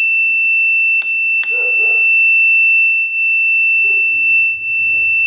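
A steady, high-pitched electronic tone from a running hot-and-cold ozone hair-steamer machine, with two sharp clicks about a second in.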